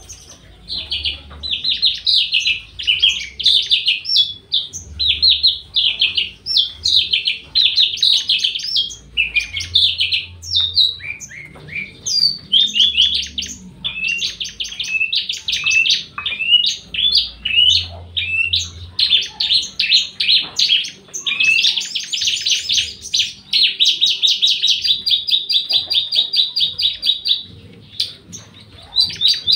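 Javan bush lark (branjangan) singing a fast, continuous run of high chirps and trills, with a short break near the end.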